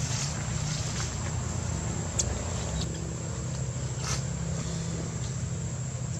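A motor engine running steadily, a low rumble with a faint hum that settles in about halfway through.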